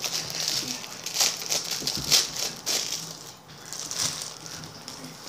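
Thin plastic wrapper crinkling and rustling in irregular bursts as a squishy toy is pulled out of it, quieter after about three seconds.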